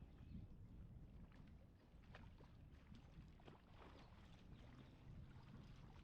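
Near silence: a faint low rumble with a few light ticks.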